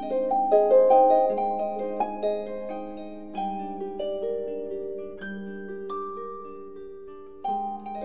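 Background music: a gentle melody of plucked-string notes, a quick run of notes at first, then slower ringing notes in the middle, quickening again near the end.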